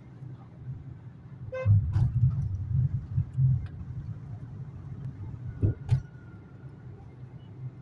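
Low rumble of engine and road noise inside a moving car, with a short car horn toot about one and a half seconds in. Two sharp knocks come near six seconds.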